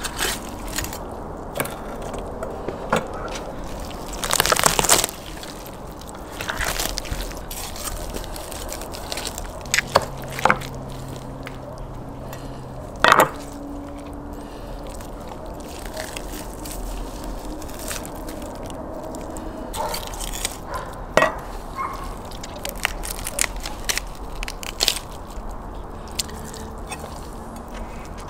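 Whole roast lamb being torn apart by hand and cut with a knife on wooden boards: irregular cracking and crunching of bones and crisp skin, with occasional sharp knocks of the knife on the board and a louder crunching stretch about four seconds in.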